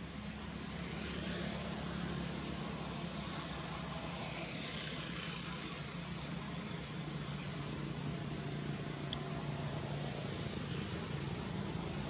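A steady low engine hum, like a motor vehicle running nearby, over a haze of outdoor background noise. It grows slightly louder about a second in.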